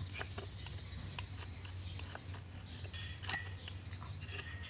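Small carving knife shaving chips from a mahogany kuksa cup: irregular short cuts and clicks of the blade in the wood, over a low steady hum.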